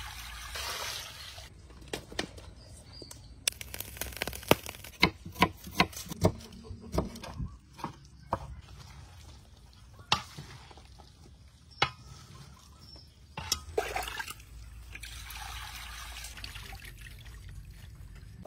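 Water poured from a ladle over raw pig face pieces in a metal basin, followed by a run of sharp knocks and clatter, then water splashing as the raw pig skin is rinsed in the basin.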